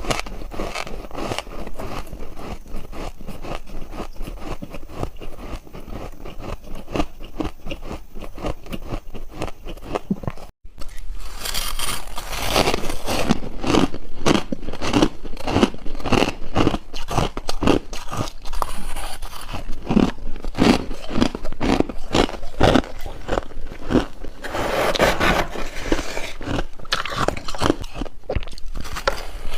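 Freezer frost ice being bitten and crunched close to the microphone, with dense irregular cracking and crunching. About ten seconds in there is a brief dropout, and the crunching comes back louder after it.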